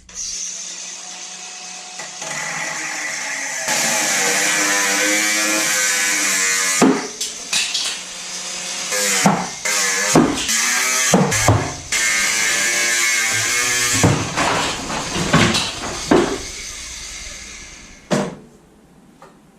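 A power tool running under load, its pitch shifting as it works, with sharp knocks in between; it stops near the end.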